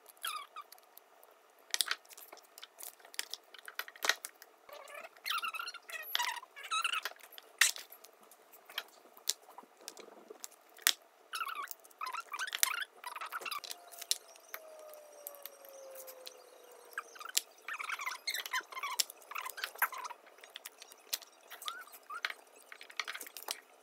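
Sheet of adhesive vinyl being handled and pressed onto a glass mug, crinkling and crackling in irregular bursts with short clicks as it is smoothed onto the glass.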